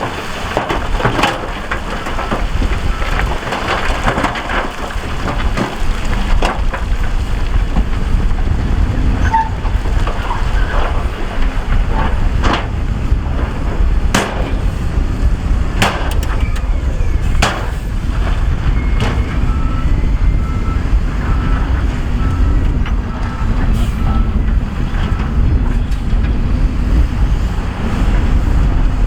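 Heavy earthmoving machinery running steadily under load, with scattered sharp clanks of rock. A short high beep repeats for several seconds past the middle.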